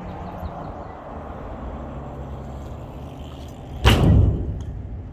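BMX bike rolling, with a steady low rumble from the tyres, then one sharp, loud landing impact about four seconds in as the bike comes down from a bunny hop, fading over about half a second.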